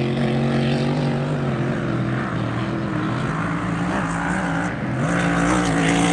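Grand Prix hydroplane race boats running flat out, their engines a loud, steady drone heard across open water, the pitch wavering slightly as they hold speed.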